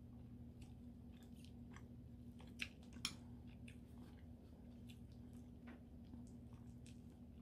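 Metal spoon clicking against a ceramic rice bowl as it cuts a soy-braised egg on the rice, with two sharp clinks near the middle and faint small eating noises, over a faint steady hum.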